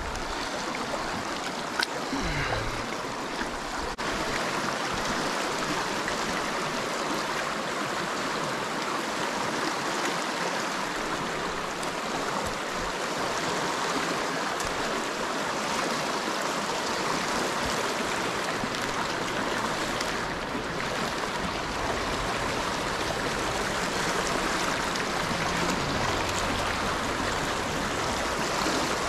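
The Big Thompson River running steadily over a shallow, rocky riffle: a continuous rush of flowing water. A single light knock comes about two seconds in.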